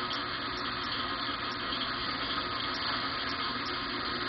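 Band saw running steadily while cutting a large piece of wood.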